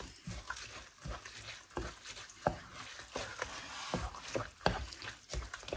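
Thick rice and tomato-vegetable filling being stirred in a pan, the stirring utensil scraping and knocking lightly against the pan at irregular moments.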